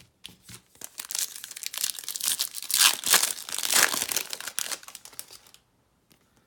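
Foil wrapper of a Topps Chrome trading-card pack being torn open and crinkled by hand: a dense crackling that is loudest about three to four seconds in and stops shortly before the end.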